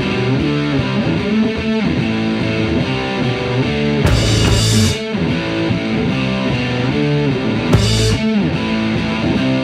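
Background rock music led by distorted electric guitar, with a short burst of hiss about four seconds in and again near eight seconds.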